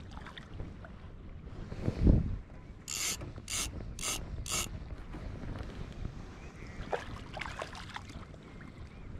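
Spinning reel buzzing in four short, even bursts about two a second, the sound of line being pulled off the reel by a hooked mullet. A low thump comes about two seconds in.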